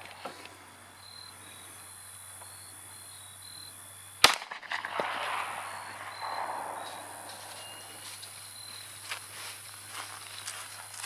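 A single gunshot about four seconds in, followed by a brief echo. Insects chirp in short high pulses in the background.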